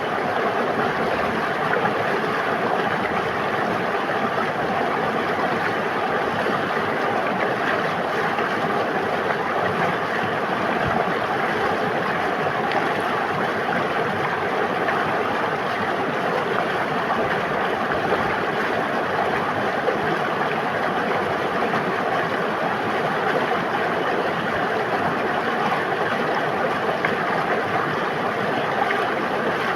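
River water flowing and babbling in a steady, unbroken rush.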